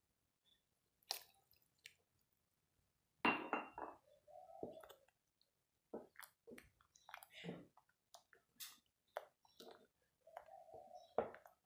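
A spoon stirring thick tomato ketchup in a cooking pot while cornflour slurry is mixed in to thicken it. It sounds as faint, irregular wet squelches, with occasional clinks of the spoon against the pot.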